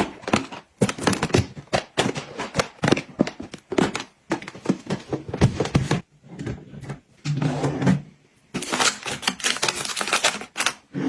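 Quick, irregular clicking and clattering of small hard containers being handled, tapped together and set down one after another. A short lower hum or rattle joins in about two-thirds of the way through.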